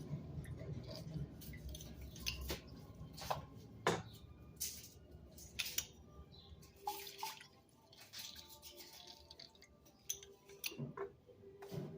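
Scattered light clicks and taps at an uneven pace, with no steady rhythm: kitchen utensils and ingredients being handled on a counter.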